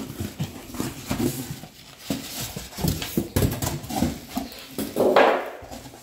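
Packaging being handled inside a cardboard box: irregular rustling, knocks and scrapes of cardboard, foam inserts and plastic wrap, with a louder scrape about five seconds in.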